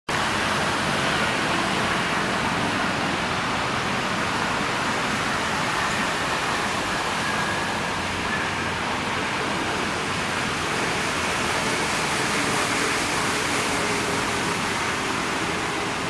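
Steady, even rushing background noise with no distinct events, holding at one level throughout.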